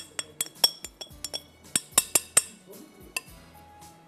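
A utensil clinking against a glass mixing bowl: rapid, uneven clinks with a ringing tail, several a second, thinning to a few scattered ones in the second half, as flour is worked into cake batter.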